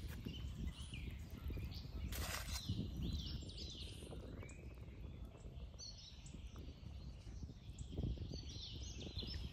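Small birds chirping over a steady low rumble of outdoor background noise, with a brief noise a little after two seconds in.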